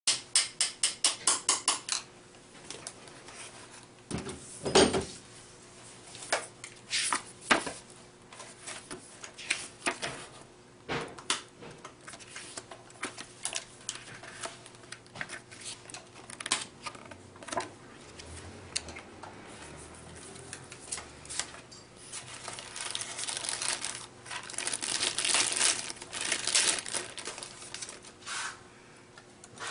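Packaging being handled: a quick, even run of about ten clicks at the start, then scattered taps and knocks as the foam box, its contents and the printed manual are handled, and plastic wrap crinkling in the last third.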